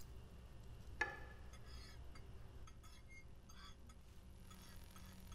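Cutlery clinking against a plate: one sharper clink about a second in, then faint scattered clinks.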